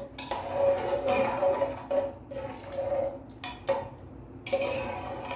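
A long spoon stirring thickening fish broth in a pressure-cooker pot, the liquid sloshing in repeated strokes. The spoon now and then clicks against the metal pot.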